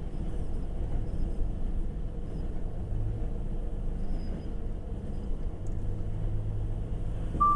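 Steady low rumble of a lorry's engine and its road noise, heard inside the cab as the truck moves off slowly in traffic.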